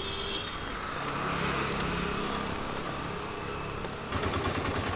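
Road traffic: passing vehicles with a steady engine hum and road noise. About four seconds in it changes abruptly to a louder, closer engine with a rapid throbbing beat.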